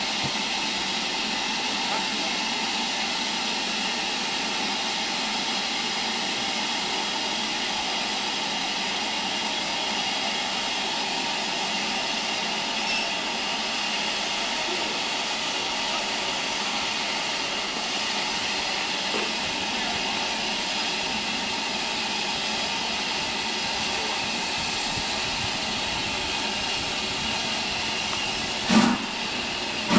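Steady hiss of steam from a standing LMS steam locomotive. Near the end comes one sharp, loud exhaust beat as it starts away.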